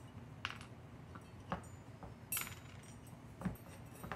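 Four light metallic clicks and clinks as the screw and small weights are worked off a titanium Fomenkov two-reeded jaw harp by hand.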